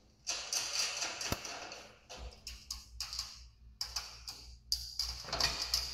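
Folding aluminium side rail of a manual hospital bed being lifted into place: a run of metallic rattles, taps and clicks as the rail's pivoting posts swing up and its joints knock, with a sharper click about a second in.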